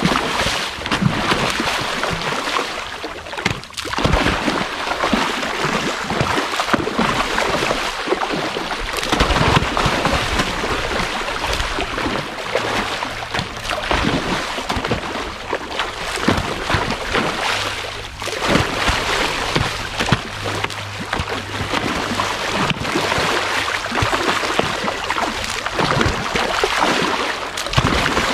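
Many large pond fish thrashing and splashing at the surface in a feeding frenzy: a continuous churn of splashes and slaps on the water.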